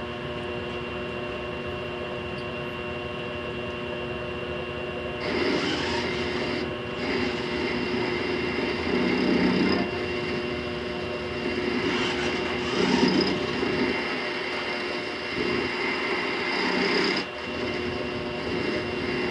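Grizzly G0769 mill-lathe combo running with a steady hum. About five seconds in, the lathe tool starts cutting the spinning steel workpiece, a scraping hiss that swells and eases several times.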